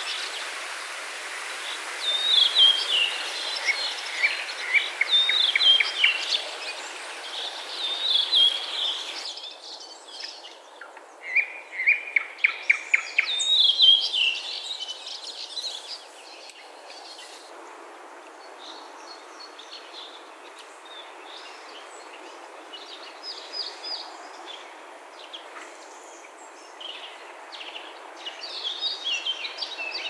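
Several songbirds singing in repeated short phrases and quick trills over a steady outdoor hiss. The high hiss cuts out about nine seconds in, and the song is fainter in the second half.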